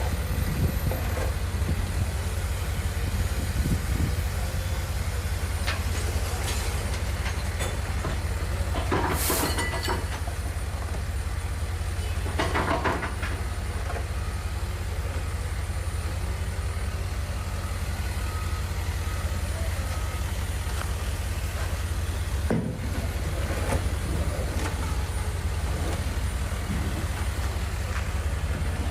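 Steady low rumble of vehicle traffic on a city street, with a couple of brief louder noises about nine and thirteen seconds in.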